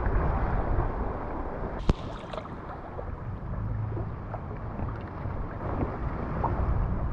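Sea water lapping against a kayak, with wind on the microphone and a few small splashes. One sharp click comes about two seconds in.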